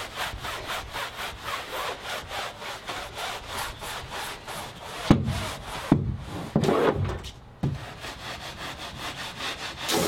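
Soft-bristle brush on a pole scrubbing a boat's deck wet with cleanser, in quick back-and-forth strokes of about five a second. The strokes pause for a few sharp knocks about halfway through, then start again.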